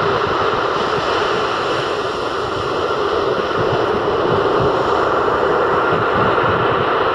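Rough sea surf breaking on a sandy shore: a steady, loud wash of waves and foam, with wind rumbling on the microphone.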